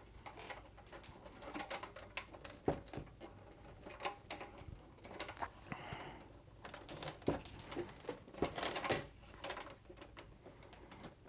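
Plastic front panel of a PC case being pushed back onto the case: irregular clicks and knocks as its clips are worked into place, a few louder knocks among them.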